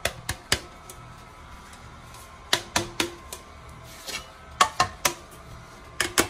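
Metal springform cake pan being tapped to shake out excess flour over the greased inside: sharp metallic taps in quick groups of three or four, with a fresh group starting near the end.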